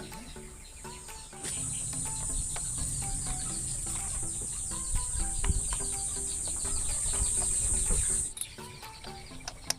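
Upbeat background music with a steady melody. About a second and a half in, a loud, steady, high-pitched hiss with a low rumble under it joins the music, then cuts off abruptly near the end.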